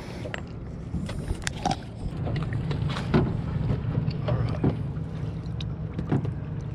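A boat's motor runs with a steady low hum. Scattered clicks and knocks of gear being handled in the boat sound over it.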